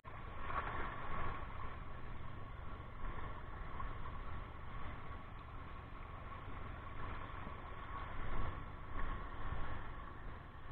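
Wind rumbling on the microphone at the seashore, with a faint steady hum running underneath.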